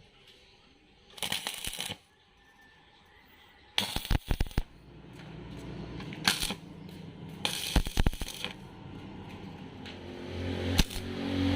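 Stick-welding arc: a short burst of scratching about a second in, then from about four seconds in the electrode arc crackles with irregular sharp pops, settling into a steadier crackle that grows louder near the end.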